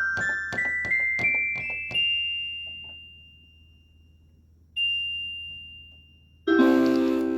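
Electronic keyboard with a piano-like voice playing a quick rising run of notes that rings away, then a single high note, then a loud low chord struck near the end.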